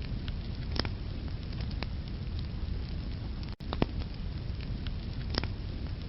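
Wood fire crackling in a fireplace: a steady low rumble of burning logs with sharp pops scattered through it, the loudest about a second in and just past five seconds. The sound cuts out for an instant about three and a half seconds in.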